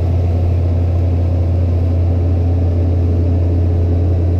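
CAT 304CR mini excavator's diesel engine running steadily with a deep, even drone.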